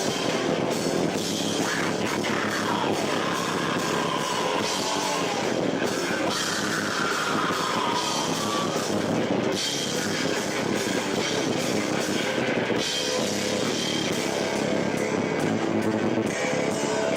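Live rock band playing loud, with drum kit and guitar, some notes sliding in pitch. The recording is harsh and echoey: the camera microphone could not handle the room's reflections.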